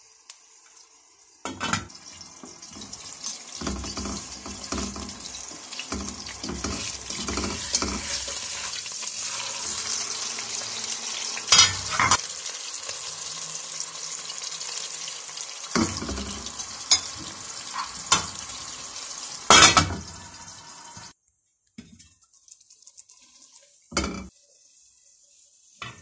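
Beef burger patty sizzling as it fries in oil in a stainless steel pot, with several sharp metal knocks against the pot. The sizzle cuts out about three quarters of the way through, followed by one more knock.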